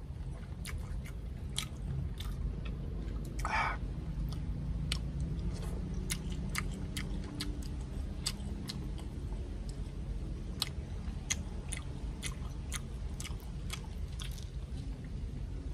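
Chewing of crispy deep-fried crocodile head, with many short sharp crunches scattered throughout.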